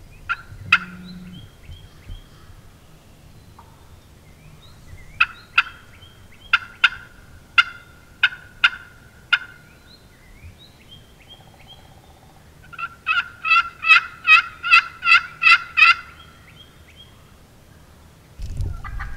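Wild turkey yelping: a couple of sharp notes at the start, a run of about seven yelps around the middle, then a faster, louder string of about a dozen yelps, some four a second. A low rushing noise comes in just before the end.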